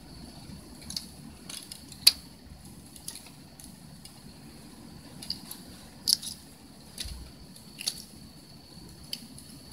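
A cat playing with a foxtail grass seed head, batting and grabbing at it: scattered short, crisp scratchy clicks and rustles, about eight in all, the loudest about two seconds in.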